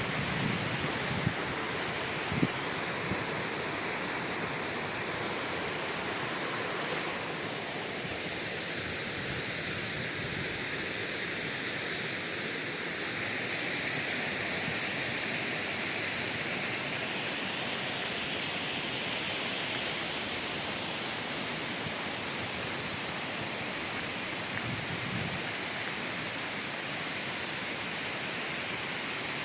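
Waterfall: a steady rush of falling water, with a few soft knocks in the first seconds.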